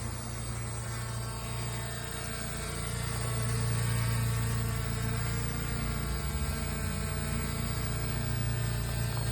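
Small quadcopter drone's electric motors and propellers running: a steady buzzing hum that grows a little louder about three seconds in.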